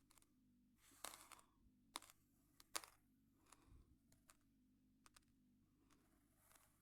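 Raw, uncooked rice grains crunching between the teeth while chewing: a series of short, sharp crunches and clicks, with a cluster about a second in and the loudest crunch nearly three seconds in.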